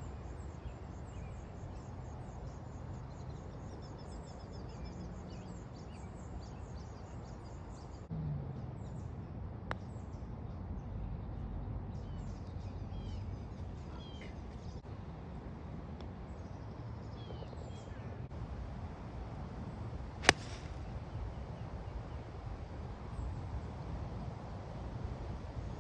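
Birds chirping over steady outdoor background noise, then a single sharp crack of a golf club striking the ball late on, the loudest sound.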